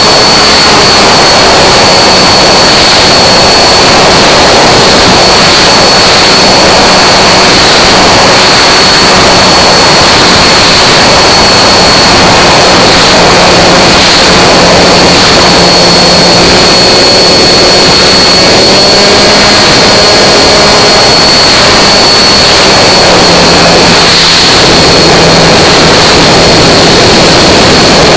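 Sig Alpha 40 RC plane's engine running steadily at high speed, heard very loud and close with a rush of air over it and a thin steady high whine. Its pitch drops a little about 22 seconds in.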